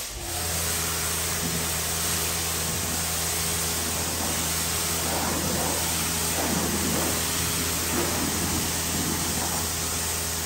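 Pressure washer spraying water onto a pickup's painted body panels: a steady hiss of spray over the even hum of the washer's motor and pump. It starts abruptly as the trigger is pulled.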